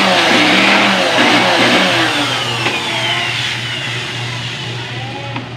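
A motor vehicle's engine running and fading away, its pitch falling in several glides.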